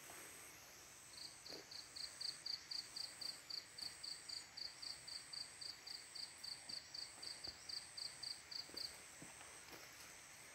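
An insect chirping in an even series of short, high notes, about four a second, for some seven seconds and then stopping. A faint, steady, higher drone sounds behind it.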